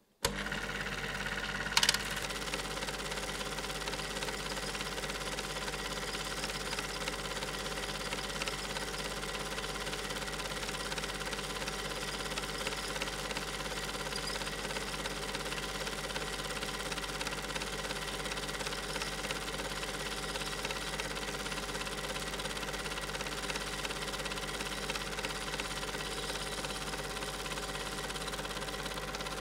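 Super 8 film projector running steadily, a constant mechanical whirr with fixed tones, with one sharp click about two seconds in.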